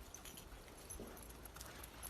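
Near silence, with faint scattered clicks and light rustling.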